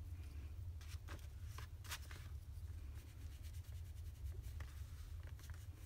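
A small hand tool scratching score marks into soft clay: a few short scratches in the first two seconds, fainter ones later, over a low steady hum.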